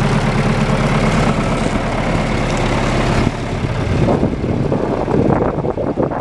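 John Deere 510C loader backhoe's diesel engine idling steadily. About three seconds in the sound turns rougher and more uneven.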